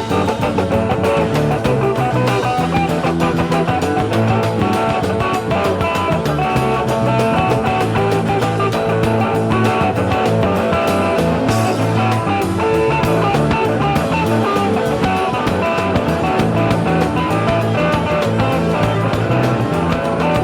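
Rock music with electric guitar as a soundtrack.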